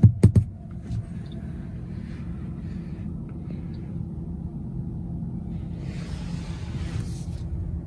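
Steady low road and tyre rumble inside the cabin of a Tesla Model 3 electric car rolling slowly, with no engine sound. A few sharp knocks open it, and a short hiss comes about six seconds in.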